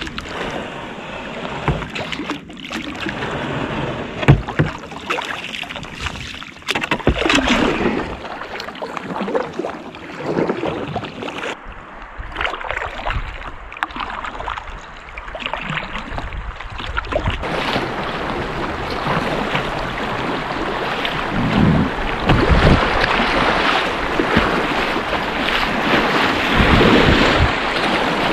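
Paddle strokes and water splashing and sloshing against a kayak on a river, with the rush of choppy current growing louder and steadier in the later part as the boat runs a riffle and waves break over the bow.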